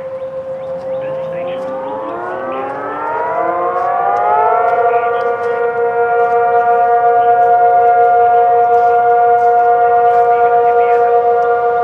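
Outdoor tornado warning sirens sounding for a drill. One siren already holds a steady tone; about a second in, another winds up, rising in pitch over a few seconds before settling into a steady two-tone chord that wavers slightly and grows louder.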